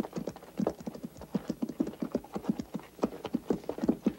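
Hoofbeats of a herd of horses being driven along a dirt yard, a dense, uneven run of knocks from many hooves at once.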